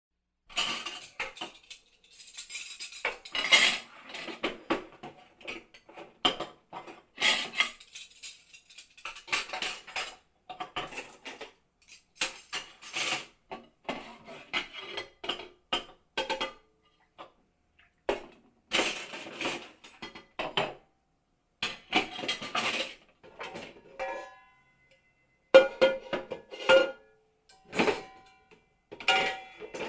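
Metal kitchen utensils, pots and pans clattering and clinking in irregular bursts a second or two long, separated by short pauses. In the later part a few struck pieces ring on with a steady tone.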